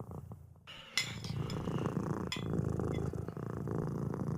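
A cat purring steadily, with a few short, sharp clinks: one about a second in, and two more near the middle.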